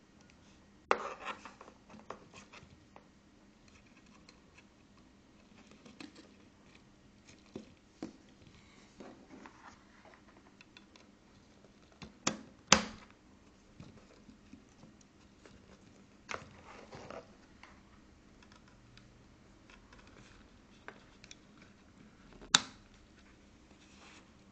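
Handling noise from a bare circuit board and its plugged-in cables: scattered short clicks and knocks as fingers touch the board, its buttons and its connectors, with two sharp clicks a little past halfway and another near the end.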